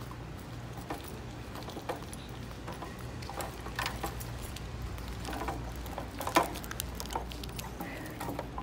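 Footsteps on a hard tiled mall floor, unevenly spaced taps with a sharper knock about six seconds in, over a steady low hum of the building's ventilation.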